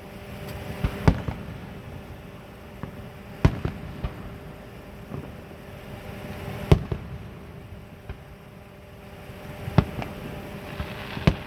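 Aerial fireworks going off: a series of sharp bangs at irregular intervals, some in quick pairs, over a faint steady hum.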